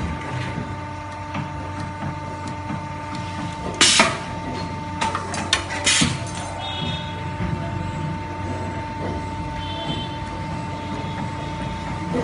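CNC wire bending machine running: a steady mechanical hum with a constant tone. There is a loud sharp knock about four seconds in, then a quick run of sharp clicks and knocks a second or two later.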